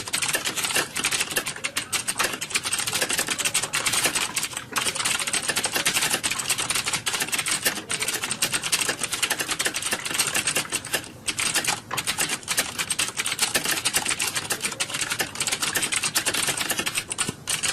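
Fast typing on a computer keyboard: a rapid, continuous patter of keystrokes with a few brief pauses.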